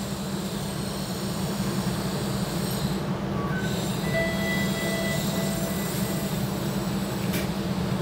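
A TTC streetcar heard from inside the car as it runs along on the rails: a steady rumble of motors and wheels, with a thin high tone, probably from the wheels, for a couple of seconds about halfway through.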